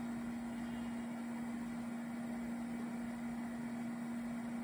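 SUGON 8610DX hot air rework station's blower fan running at full air flow while the docked handpiece cools down: a steady hum with one low tone over a soft rush of air.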